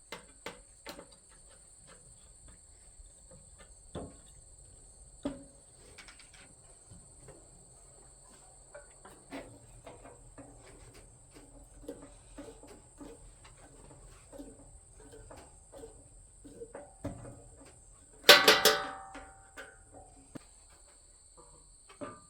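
Scattered light clicks and taps of metal smoker parts and screws being handled, with one loud ringing metal clank about eighteen seconds in. Crickets chirp steadily in the background.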